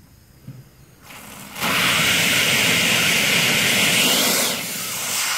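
Steam boiler's brass drain valve opened under pressure, blowing out a jet of hot water and steam as a loud, steady hiss. The hiss starts about a second in, reaches full strength about a second and a half in, and drops a little about four and a half seconds in.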